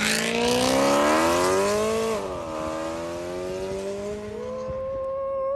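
BMW M3 accelerating away after passing close by: engine pitch climbs, drops with an upshift about two seconds in, then climbs again as the car fades into the distance.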